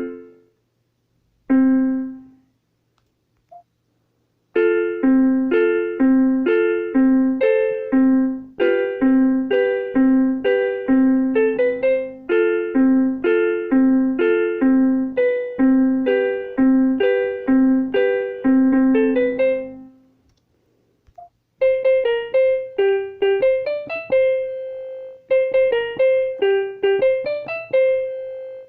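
Electronic keyboard played in a piano voice: a couple of single notes, then a steady repeated bass-note-and-chord pattern, a short pause, and a higher melody of quick notes over a held note.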